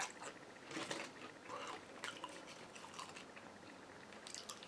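Soft, wet chewing and mouth sounds, with a few faint clicks.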